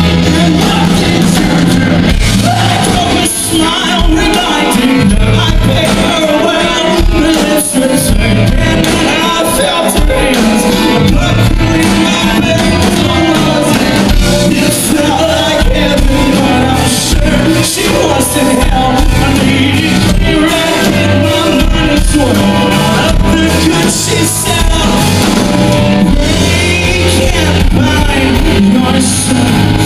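A rock band playing live and loud, with electric guitars and a lead singer, heard from the crowd.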